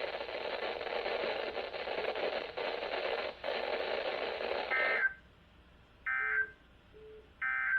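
Weather radio receiver hiss, then three short raspy digital data bursts about a second and a half apart: the EAS end-of-message code closing a NOAA Weather Radio required weekly test. Between the bursts are two short low beeps like call-waiting tones, a glitch on the station.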